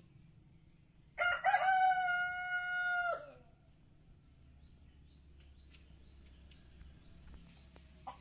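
Rooster crowing once, a loud cock-a-doodle-doo about two seconds long that starts about a second in and drops away at the end.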